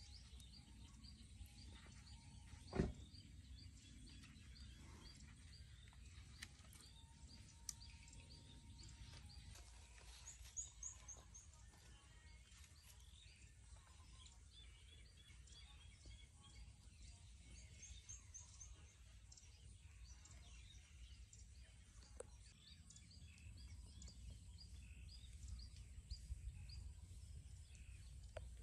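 Near silence: faint outdoor pond-side ambience with occasional distant bird chirps in short rapid runs. A single sharp knock sounds about three seconds in.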